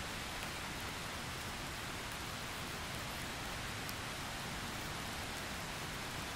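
A steady, even hiss with a few faint ticks.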